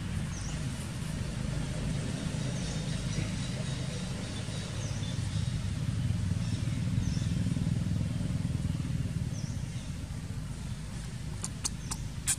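Low, steady rumble of a motor vehicle's engine running nearby, swelling in the middle and easing off again. A small high chirp repeats about every second and a half over it, and a few sharp clicks come near the end.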